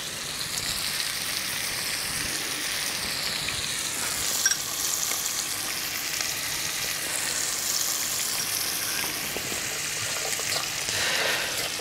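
Steady sizzle of food frying in hot oil, with one light click about four and a half seconds in.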